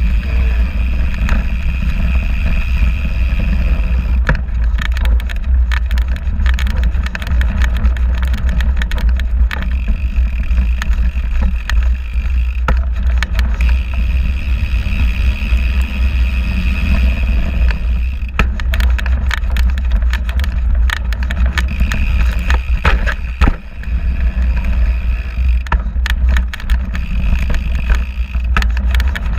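Fat bike riding along a dirt trail, heard from a camera clamped to the front fork: a constant heavy low rumble from the wide knobby tyre rolling over the ground and air rushing past, broken by frequent short knocks and rattles as the bike hits bumps.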